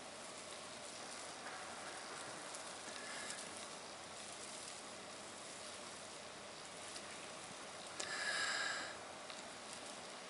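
Soft blowing of breath into a smouldering dry-grass tinder bundle to bring an ember to flame, with faint crackling and ticking from the grass. About eight seconds in, a louder high-pitched tone lasts about a second.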